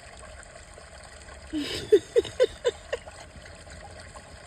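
A woman's short laugh: a breathy start, then about five quick pitched 'ha's in a row, lasting around a second, starting about a second and a half in.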